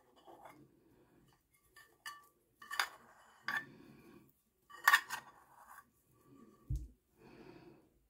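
A few sharp clinks and knocks of a shaving lather bowl and brush being handled, the loudest about five seconds in, with a low thud near the end.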